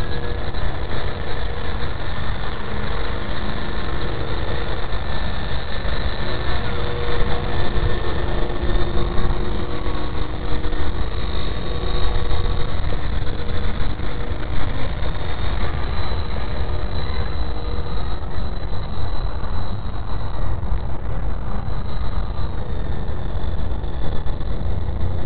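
Wltoys V913 RC helicopter in flight, its electric motor and rotor whining in several thin tones whose pitch drifts up and down with the throttle. Heavy wind rumble on the microphone runs under it and is the loudest part.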